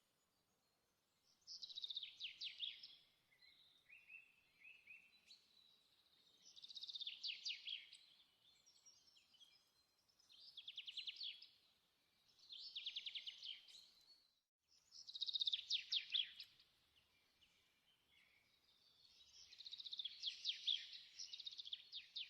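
A songbird singing a series of high, fast-trilled phrases, each a second or two long, repeated every few seconds with short pauses between.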